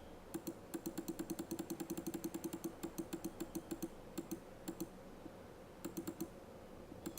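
Rapid, light clicking in irregular runs of many clicks a second, broken by short pauses about four, five and six seconds in.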